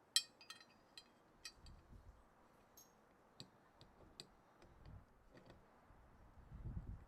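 Irregular light clicks and taps, a sharp one right at the start, with a few soft low thumps, the loudest near the end.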